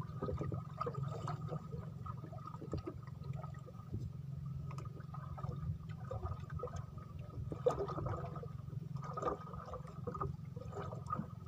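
Water lapping and gurgling against the side of a small wooden boat over a steady low rumble, with scattered light clicks and rustles as a fishing handline is hauled in by hand.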